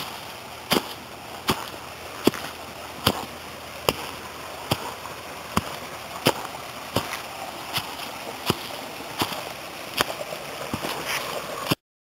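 Footsteps at a steady walking pace, a sharp step about every 0.8 seconds, over the steady rush of a small mountain stream.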